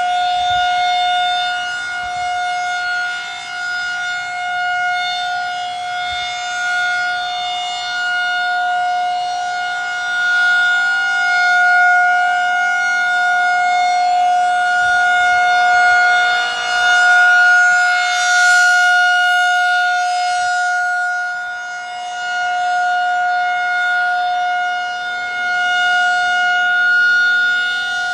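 Federal Signal 2001 SRN electromechanical outdoor warning siren (12-port, DC) sounding a Full Alert steady tone, holding one pitch while its loudness swells and fades. Heard from inside a car about 50 ft away.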